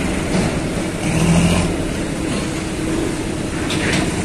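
Diesel tractor engines running as a tractor pulls a trailer loaded with sugarcane past. The engine noise swells louder briefly about a second in.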